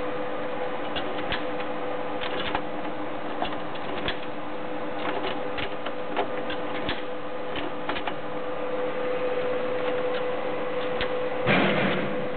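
A Nautilus Hyosung ATM's internal machinery gives a steady hum with scattered light clicks and ticks. A brief louder noisy burst comes near the end.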